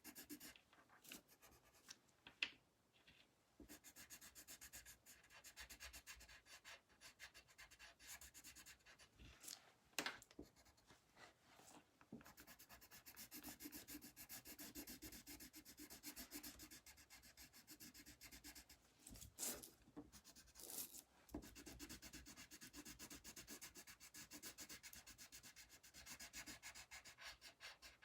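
Faint scratching of a colored pencil shading on paper in rapid back-and-forth strokes, with a few brief sharper knocks.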